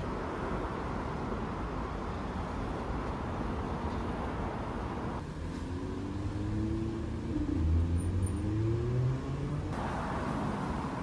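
Road traffic: steady traffic noise, then a motor vehicle accelerating past, its engine pitch rising, loudest about eight seconds in.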